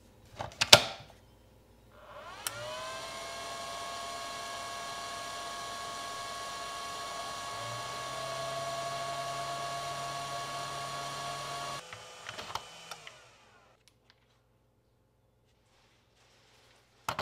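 A sharp click as the battery goes onto a Flex 24V charger, then the charger's cooling fan starts with a whine that rises in pitch as it comes up to speed. It runs steadily for about ten seconds, then cuts off and winds down.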